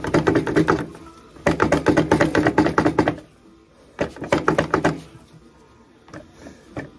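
Metal parts rattling in three bursts of rapid clicking as the transmission assembly of a 1976 Harley-Davidson Shovelhead is wiggled back and forth against its mounts. The assembly won't slide out, which the owner puts down to the starter hanging up on the swing arm or frame.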